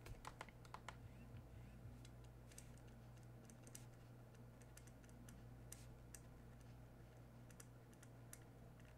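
Near silence with faint, irregular clicks and taps of a stylus on a drawing tablet during handwriting, over a low steady hum.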